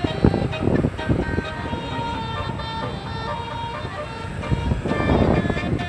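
A bus's multi-tone 'telolet' horn playing a short tune of held notes that change pitch, over engine and road noise. A louder rushing noise comes near the end.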